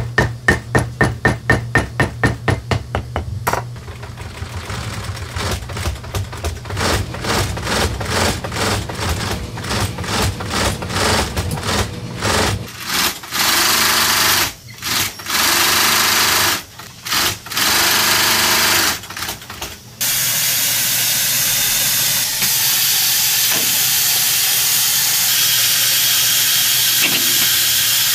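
A small hammer taps leather pieces flat on a block, about four taps a second. Then an industrial post-bed sewing machine stitches leather in bursts that start and stop. In the last few seconds there is a steady hiss.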